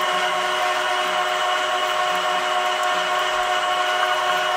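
Homemade screw oil press running under load, pressing sunflower seed: a steady mechanical hum with several held tones from its drive.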